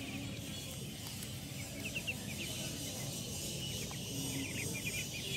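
Muscovy ducklings peeping in short, quick runs of high chirps, a burst about two seconds in and more near the end.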